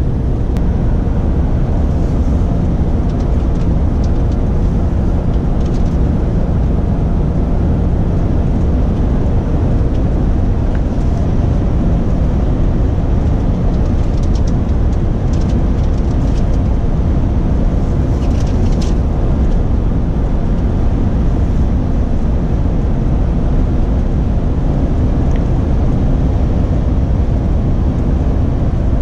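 Cab interior of a Renault Trucks T-range lorry on the move: a steady low drone of engine and road noise.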